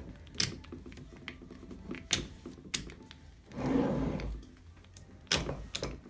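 Steel jaws of a three-jaw lathe chuck being handled on the chuck body: sharp metal clicks and knocks, about five, with a longer scraping sound about halfway through.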